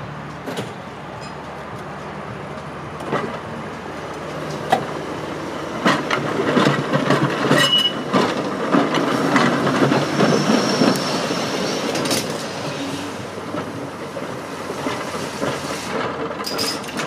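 Heritage electric tram passing close by on its track: a rolling rumble with clattering clicks from the wheels over the rail, growing loudest in the middle as it goes past, with a couple of brief high wheel squeals, then dying away as it moves off.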